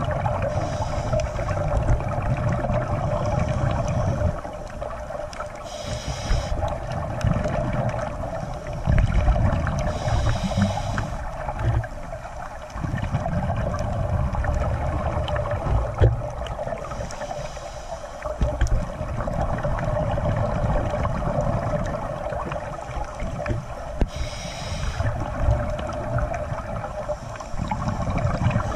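Underwater sound of scuba breathing: a hissing regulator draw on each inhale, a few seconds apart, and low rumbling bubbles on the exhales, over a steady hum.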